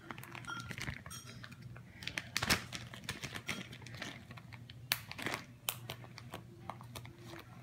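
Clear plastic bags of wax melts crinkling in short, irregular crackles as they are handled, over a faint steady low hum.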